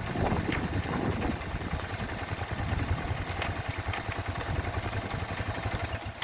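Yamaha Serow 225's single-cylinder four-stroke engine running, a rapid low pulsing with a steady hiss over it.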